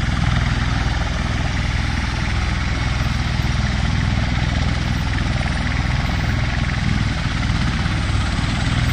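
V-22 Osprey tiltrotor's proprotors and turbine engines running. It is a steady, loud, low throbbing with a broad rushing noise over it.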